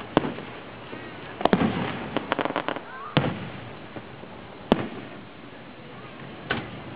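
Aerial firework shells bursting: five sharp bangs about a second and a half apart, with a quick string of crackles between the second and third.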